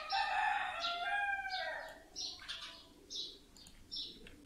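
Birds calling: one loud, drawn-out call with several stacked tones lasting about a second and a half at the start, then repeated short, high chirps.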